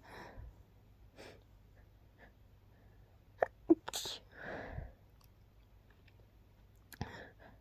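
A person's stifled sneeze about four seconds in: two sharp little catches, then a short hissing burst and a longer breath out. There is soft breathing before it, and one more sharp catch with a breath near the end.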